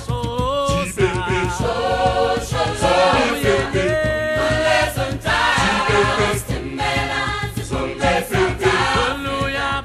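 Music: a choir of voices singing together over a steady beat.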